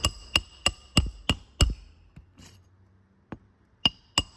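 Hammer driving roofing nails into asphalt shingles to finish a shingle repair: a quick run of six sharp, ringing metal strikes, about three a second, then a pause and a few more strikes near the end.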